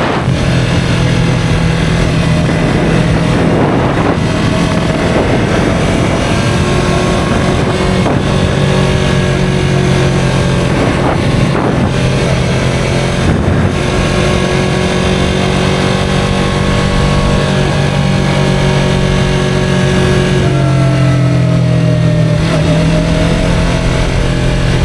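2023 Yamaha R3's parallel-twin engine running under way, with a whine of several steady pitched tones above the engine note that the owner cannot place. The tones slide down in pitch for a few seconds near the end, then level out.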